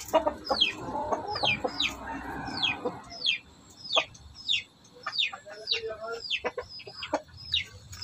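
Chickens calling: a run of short, high, sharply falling peeps about twice a second, with lower clucking underneath in the first few seconds.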